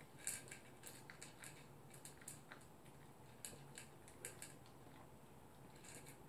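Toy poodle eating from a plastic slow-feeder bowl: faint, irregular small clicks and crunches, several close together at times, as it chews its food and knocks it against the bowl.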